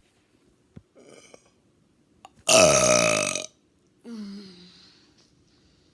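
A person lets out one loud, deliberate burp about two and a half seconds in, lasting about a second and falling in pitch. A shorter, much quieter vocal sound follows about half a second later.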